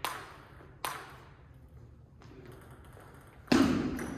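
Table tennis ball being played: sharp clicks of the ball off bat and table, two about a second apart at the start, then a much louder, duller hit about three and a half seconds in.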